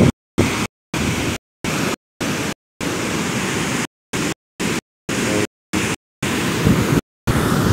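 Ocean surf breaking and foaming up a sandy beach, a steady rush of noise. It cuts out to silence over and over, roughly every half second, with one longer unbroken stretch about three seconds in.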